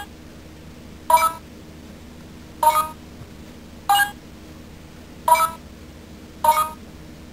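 Electronic key-press beeps from a Shinkenger Shodophone toy phone: five short chirps, one per key, spaced a little over a second apart. They are the toy's key-touch sound for the 1, 4, 7 and * keys.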